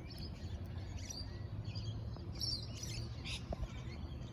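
Parrots giving short, high chirping calls at irregular moments, several in quick succession a little past the middle, over a steady low rumble.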